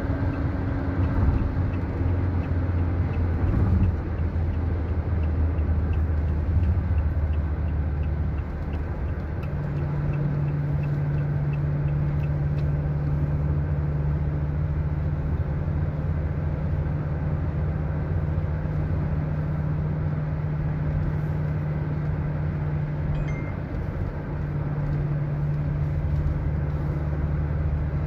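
Car driving at highway speed, heard from inside the cabin: a steady low engine and road drone whose pitch shifts up about a third of the way in.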